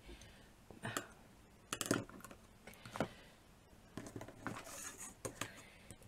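Irregular light taps and clicks of small craft tools being handled on a work table, a dozen or so short knocks spread over the few seconds.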